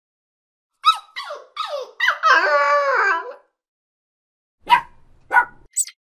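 A small dog, a miniature pinscher, gives three short falling yips and then a long, wavering whine lasting over a second. Three more brief sounds follow near the end.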